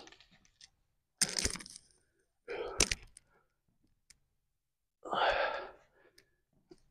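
A man breathing out hard after an exercise set: three breathy exhales a second or two apart, with a sharp click during the second one, about three seconds in.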